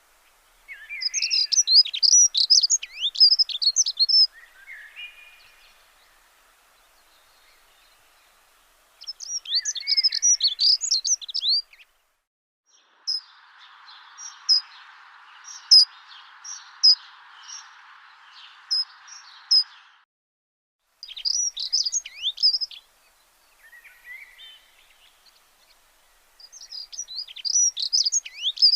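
Songbird singing in repeated phrases of quick, high chirps and trills, each phrase two to three seconds long with pauses between. In the middle a steady hiss runs under the chirps for several seconds and stops abruptly.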